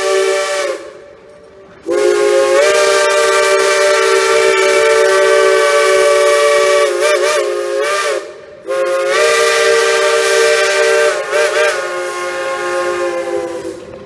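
Steam whistle of Cass Scenic Railroad's Shay locomotive No. 2, sounding several notes at once over the hiss of steam. One blast ends just under a second in, then two long blasts of about six and five seconds follow, each wavering in pitch near its end.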